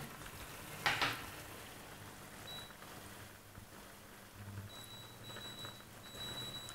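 Faint steady hiss of sauce and mushrooms cooking in a frying pan, with a short louder burst about a second in. A thin high steady tone comes and goes over the second half.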